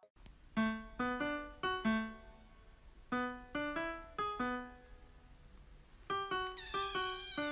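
Background music: a slow melody of single piano notes played in short phrases, each note ringing and fading, with pauses between phrases. Near the end a brighter, higher sound joins the notes.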